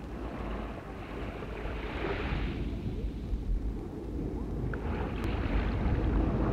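Sea waves washing in, a steady hiss of surf that swells about two seconds in and again near the end, over a low hum.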